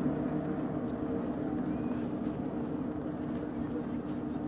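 An engine running steadily, a low hum that slowly fades, over outdoor background noise.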